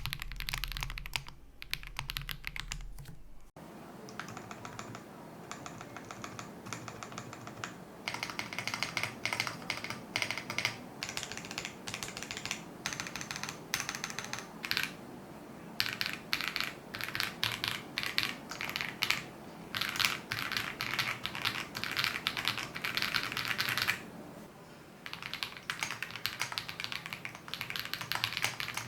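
Typing on an Ikki68 Aurora R2 mechanical keyboard with lubed Akko Radiant Red linear switches, a polycarbonate plate and lubed WS stabilizers: fast runs of keystrokes with a couple of brief pauses. A low hum under the first few seconds cuts off suddenly.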